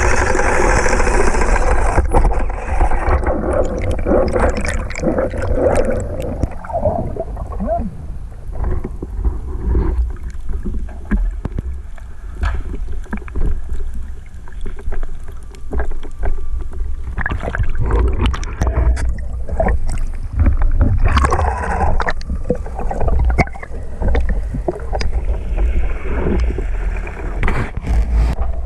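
Underwater sound from a spearfishing dive: a boat motor's hum for about the first two seconds, then a low rumble with irregular clicks and gurgling.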